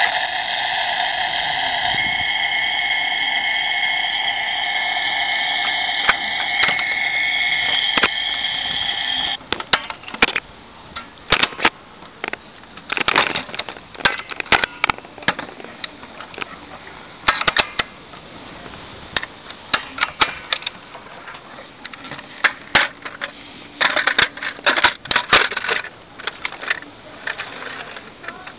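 Battery-operated Thunderbird 2 toy playing an electronic take-off sound effect from its small speaker: a steady, high-pitched whine that cuts off suddenly about nine seconds in. After that come scattered sharp plastic clicks and crackles.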